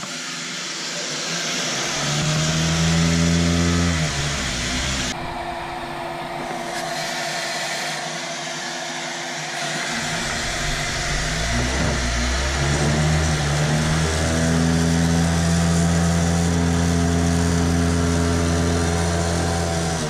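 Vacuum motor of a plate seeder running steadily with a hum and a rushing hiss. Its pitch and loudness step up about two seconds in, drop back, and rise again from about twelve seconds on.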